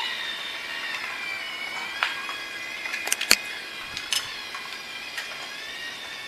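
LEGO DUPLO battery-powered toy steam train's motor and gears whirring steadily as it runs on plastic track. A few sharp plastic clicks come in, the loudest a little over three seconds in.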